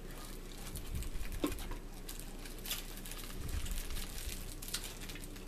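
Eating sounds: a fork clicking on a bowl, chewing, and a paper napkin crinkling, heard as scattered small clicks and rustles.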